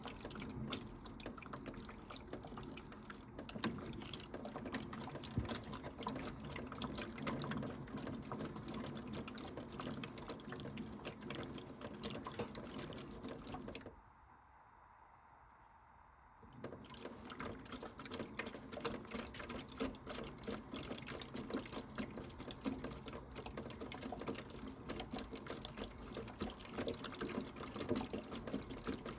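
Toy Bosch Logixx 8 washing machine running, with water sloshing and splashing. The water sound stops for about three seconds about halfway through, then starts again.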